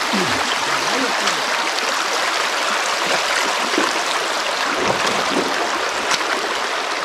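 Steady rushing and splashing of water in a small rocky creek, close to the microphone. A faint voice is heard briefly at the very start.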